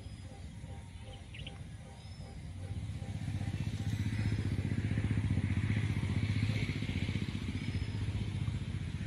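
A motor vehicle engine running off-picture, a rapid low pulsing that grows louder about three seconds in and stays strong.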